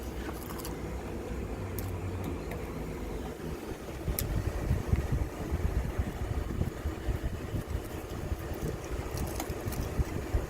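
Electric fan running with a steady low rumble, its air buffeting the microphone more strongly from about four seconds in, and a few faint light clicks.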